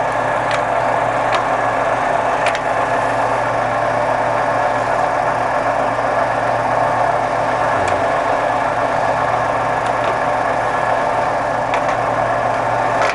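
Colchester Student 1800 three-phase lathe running steadily in a low range, its gearing driving the lead screw and feed shaft. A few sharp clicks come over it as the quick-change gearbox levers are shifted through the feeds.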